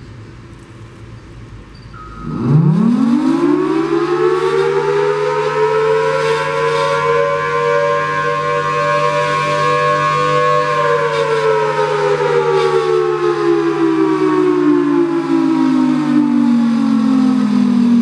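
Federal Signal Thunderbolt 1003 outdoor warning siren sounding a test: about two seconds in it winds up quickly to a high wail, holds there, then winds down steadily through the second half, with a steady lower hum underneath.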